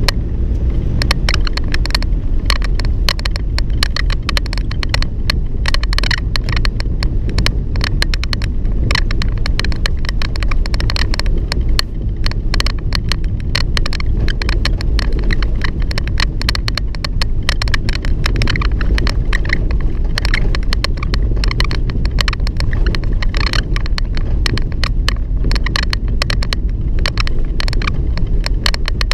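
A moving vehicle's engine and road rumble heard from on board, under a constant irregular clatter of the vehicle's door squeaking and rattling.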